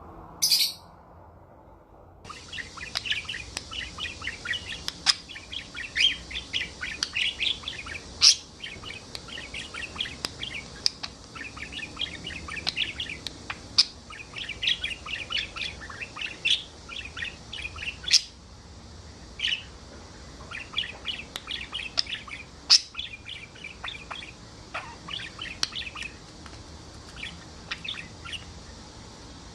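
Parrots chirping and chattering in a dense, rapid stream, with sharp shrill calls standing out now and then. A single piercing call comes about half a second in, before the chattering starts.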